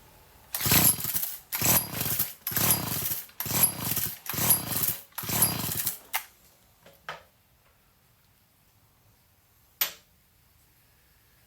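Recoil starter cord of a Stihl FS55R string trimmer pulled six times in quick succession, each pull whirring the small two-stroke engine over with its spark plug out, while the engine has oil in it. A single sharp click follows near the end.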